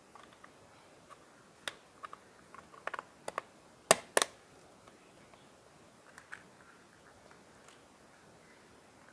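Plastic clicks and taps of a digital multimeter's back cover being handled and closed, with two sharp snaps about four seconds in.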